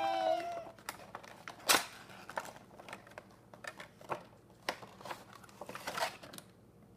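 A cardboard Funko Pop window box being handled and opened and its clear plastic insert pulled about, making scattered crinkles, taps and rustles.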